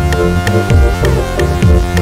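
Background electronic dance music with a steady beat, sharp ticks about four times a second, and repeated falling bass sweeps.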